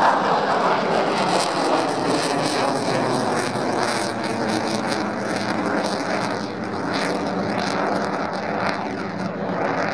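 A Eurofighter Typhoon's twin EJ200 jet engines roaring as it flies overhead, a loud, steady roar with a ragged crackle in the upper range.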